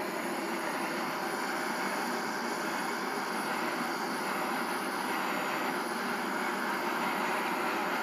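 Handheld butane torch burning with a steady hiss as its blue flame heats an aluminium freezer evaporator plate for brazing.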